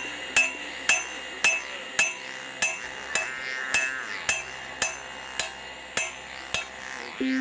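Hammer blows on hot steel over an anvil, struck in a steady rhythm about twice a second, each with a bright metallic ring, over background music.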